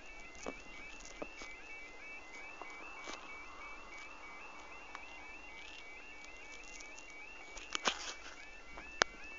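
Level crossing warning alarm sounding: a rapid, evenly repeating two-tone electronic warble, fairly faint, with a few sharp clicks near the end.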